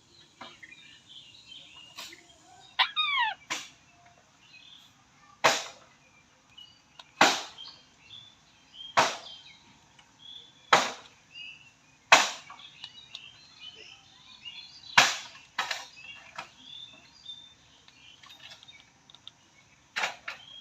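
Parrot with sharp, loud clicks every one and a half to two seconds, a short run of rising and falling chirps about three seconds in, and faint twittering throughout.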